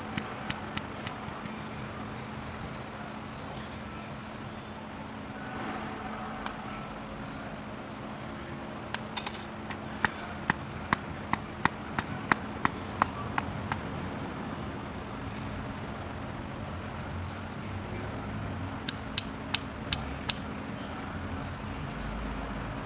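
A run of sharp, light taps or clicks, about two a second in the middle stretch, with a few scattered ones before and after, over a steady background of traffic and a low hum.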